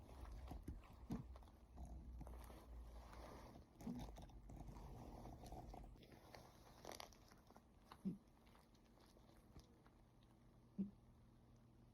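Sleeping cat snoring faintly: four short, low snores a few seconds apart, the clearest two late on.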